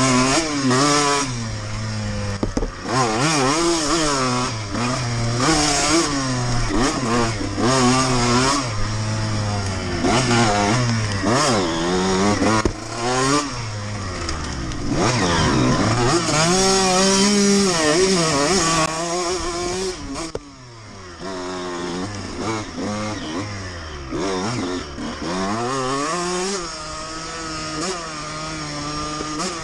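A 2002 Honda CR125R's 125 cc two-stroke single-cylinder engine being ridden hard off-road, its pitch climbing and falling over and over as the rider works the throttle, with a brief easing off about twenty seconds in.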